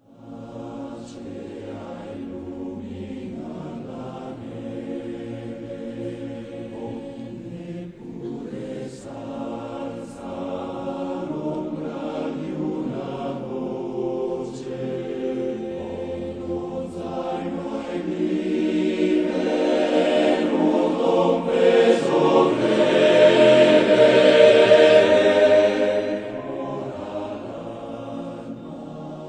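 Choir singing. It grows louder in the second half, is loudest a little past the three-quarter mark, and eases back near the end.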